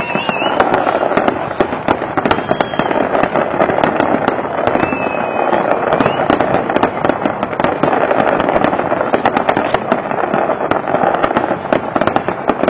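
A fireworks display at full intensity: many shell bursts and crackles overlapping into a continuous barrage, with no pause.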